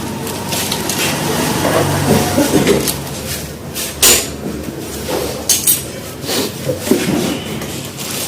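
Metal tools and engine parts clinking and knocking, with several sharp strikes in the second half. A low engine hum runs through the first few seconds.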